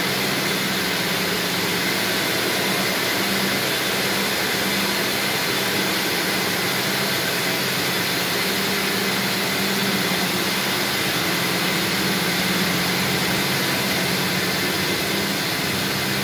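Rows of textile yarn-processing machines running in a mill: a loud, steady whir and hiss with a low mechanical hum underneath.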